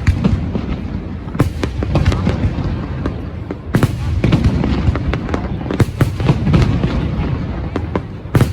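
Aerial fireworks display: shells bursting in a continuous barrage of crackling and low booms, with a few sharp, louder bangs standing out about a second and a half in, near four seconds, around six seconds and just before the end.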